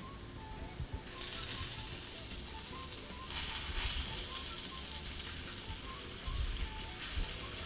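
Hot oil sizzling steadily around plantain dough rings and sticks shallow-frying in a pan, growing louder about a second in and again a little after three seconds.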